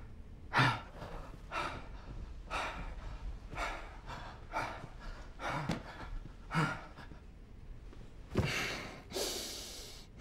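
A man breathing hard and deliberately, short sharp breaths in and out about once a second, ending in a longer breath and a hissing exhale near the end.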